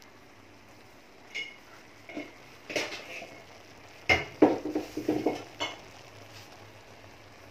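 Metallic clinks and clatter of kitchen utensils against a pan: a few separate knocks in the first three seconds, then a busier run of clattering from about four to six seconds in.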